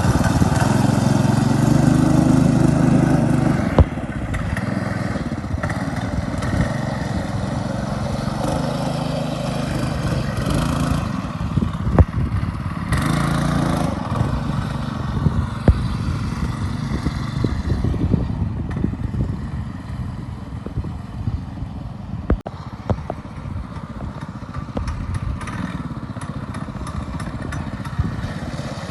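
Small engine of a homemade two-wheel-drive motorcycle working through heavy mud, running hard for the first few seconds, then rising and falling in speed. Sharp knocks and clatter break in now and then.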